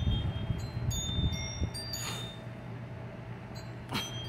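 Wind chimes tinkling in gusty storm wind, several high notes ringing out at scattered moments, over a continuous low rumble of thunder. A brief sharp crackle comes about two seconds in, and another about four seconds in.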